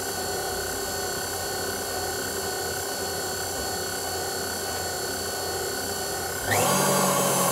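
Electric hand mixer running with a steady motor whine while cake batter is mixed. About six and a half seconds in it gets louder and its pitch sweeps upward.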